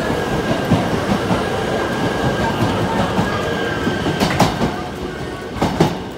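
E3 series Shinkansen train pulling out of a station and passing close by, its wheels clacking over rail joints through steady running noise, with a thin steady high whine that fades about four seconds in. Several sharp, loud clacks come as the last car's bogies pass, and the sound then falls away as the train draws off.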